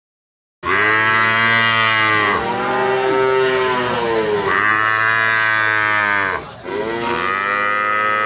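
A cow mooing: about four long, loud moos one after another, starting after a brief moment of silence.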